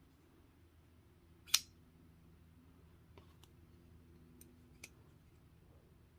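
Gear Head folding knife being worked, its blade and stainless-steel gear mechanism snapping with one sharp metallic click about a second and a half in and another at the end, with a few faint ticks in between.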